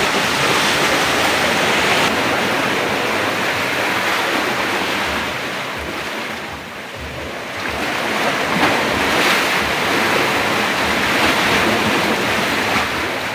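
Sea waves washing against shoreline rocks: a steady rushing that eases briefly about halfway through and then builds again.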